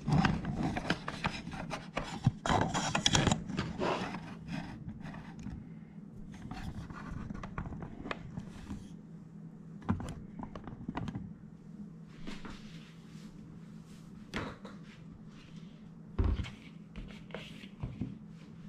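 Handling noise on a kitchen table: rubbing and scraping with clicks, dense for the first few seconds, then scattered knocks, with a heavier thump near the end. A steady low hum runs underneath.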